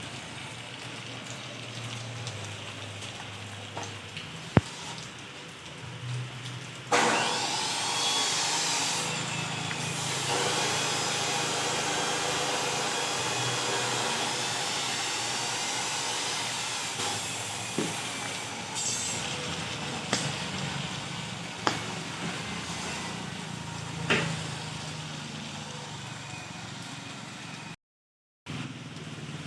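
A handheld power tool's motor starts about seven seconds in and runs steadily, with a few sharp clicks along the way. It cuts out abruptly near the end.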